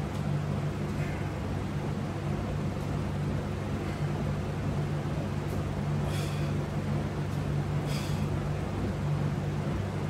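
Steady low hum of a window air conditioner, with two brief soft hisses about six and eight seconds in.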